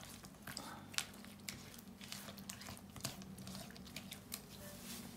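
A fork beating eggs into creamed butter and sugar in a dish: soft squishing with quick, irregular clicks of the fork against the dish, over a faint low hum.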